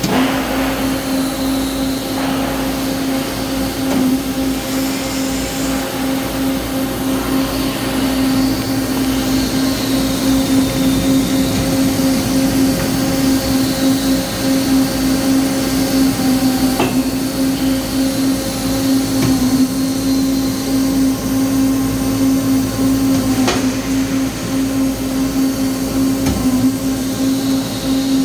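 Peddinghaus PCD-1100/3C CNC beam drill line running: a steady machine hum with a faint high whine that wavers, and a few sharp knocks along the way.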